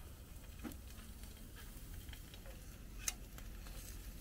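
Small whole fish frying in a pan on a gas camp stove, a faint sizzle with scattered crackles and small clicks, one sharper click about three seconds in.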